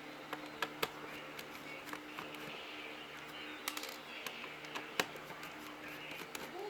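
Scattered light clicks and taps of a screwdriver and fingers working on a laptop's plastic bottom case while hidden screws are sought and removed, over a faint steady hum.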